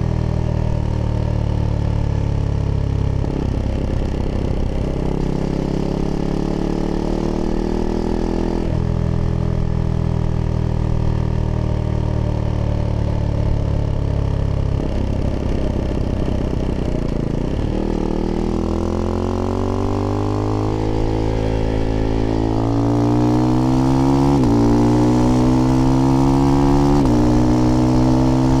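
Husqvarna Svartpilen 401's single-cylinder engine through an aftermarket IxRace exhaust with a modified dB killer, ridden on the road. It holds speed, twice goes rough and uneven off the throttle, then pulls hard with rising revs and two quick upshifts near the end, getting louder.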